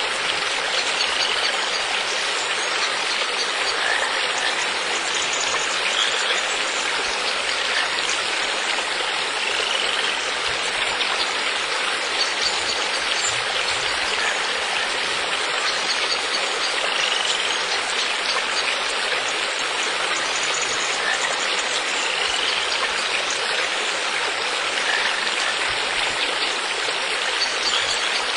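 Steady rushing of a flowing stream, even and unbroken, with a few faint short high chirps here and there.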